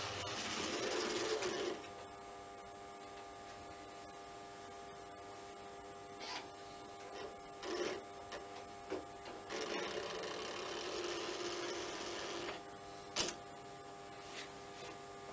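Märklin HO model Crocodile electric locomotive running along the layout's track: a small electric motor whirring over a steady hum, louder for a few seconds twice, with scattered clicks of wheels over rail joints, one sharp click near the end.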